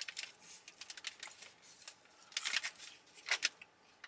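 Crinkling and rustling of paper food packaging being handled, in a few short bursts; the loudest come a little past halfway and again near the end.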